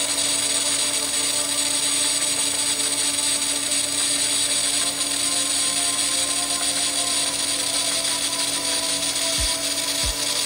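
TIG welding arc on 304 stainless steel tubing: a steady hiss with a steady hum beneath it. Two low thumps come in near the end.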